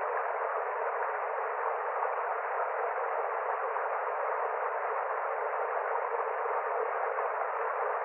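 Steady rushing of a small mountain stream tumbling over rocks, an even, unbroken rush with no deep rumble and no bright hiss.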